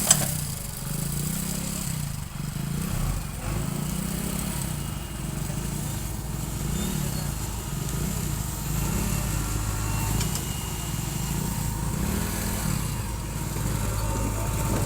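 Diesel engine of a JCB 4DX backhoe loader running steadily while it digs, its note rising and falling as the hydraulics take load. A sharp click sounds at the very start.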